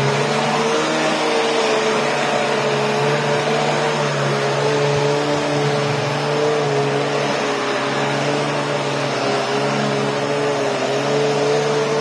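National 'Powerful & Compact' vacuum cleaner running steadily: a motor whine that wavers slightly in pitch over a broad rush of air as the floor nozzle is pushed across a wooden floor.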